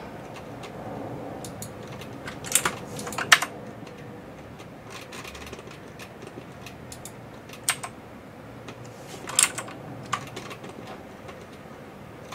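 Computer keyboard and mouse clicking in short clusters with quiet gaps between.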